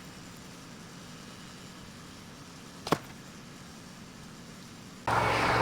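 A compound bow shot once: a single sharp snap of the string and arrow leaving the bow, standing out over a faint steady hum. Near the end a loud, steady rushing noise sets in abruptly.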